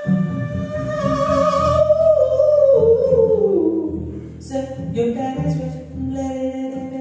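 Female jazz vocalist singing over a double bass: a long held note that slides down in pitch around the middle, then shorter sung phrases, with the bass playing low notes underneath.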